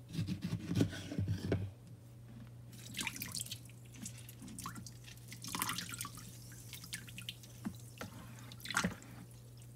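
Lemon juice dripping and splashing into a bowl of water as a lemon is squeezed by hand over it, in scattered short drips. A few knocks from handling the lemon come in the first couple of seconds, and a steady low hum runs underneath.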